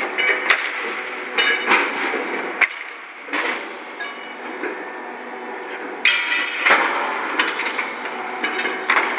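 Steel clanking as a crane's lifting clamp beam is set down and fastened onto a layer of steel rails, with about eight irregular metal knocks and the rails ringing between them.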